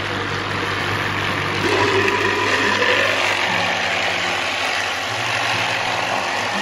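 Thumler's UV-10 vibratory rock tumbler running with a 3D-printed bowl: a steady electric hum under the churning of rocks in grit slurry. It gets a little louder about two seconds in, as the lid comes off.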